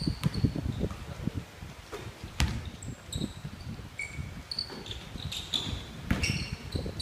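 Basketball game play on a wooden gym floor: sneakers squeaking in short high chirps, footsteps thudding and the ball bouncing, with a few sharp thumps.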